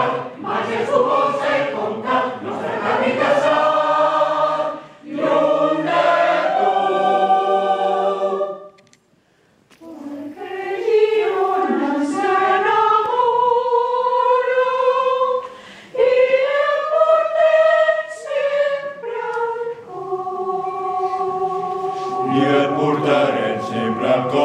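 Mixed choir of men's and women's voices singing a song in harmony, breaking off briefly about nine seconds in, then resuming and holding long chords near the end.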